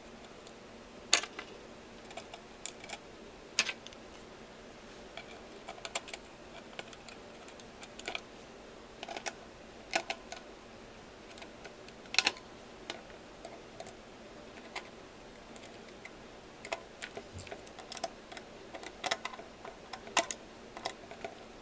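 Irregular small clicks and taps as a small flathead screwdriver drives the screws that hold the circuit board of a Brother FB-100 floppy disk drive back onto its metal frame.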